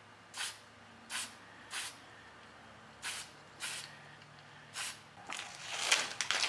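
Aerosol can of Marsh ink sprayed in short hissing bursts, six of them, then a longer, louder, broken spray near the end.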